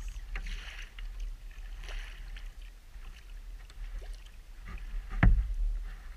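Kayak paddling: water splashing and dripping off the paddle blades with each stroke, and a sharp knock a little after five seconds in.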